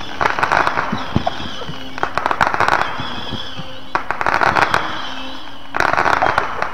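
Fireworks on a burning barge going off in four crackling bursts about two seconds apart, each a rapid string of sharp pops. The fireworks are being set off by the fire rather than fired on purpose.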